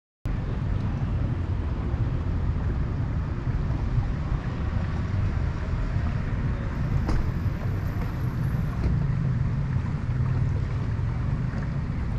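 Small motor boat under way: a steady low rumble from its motor, with wind and water noise. It cuts in abruptly just after the start.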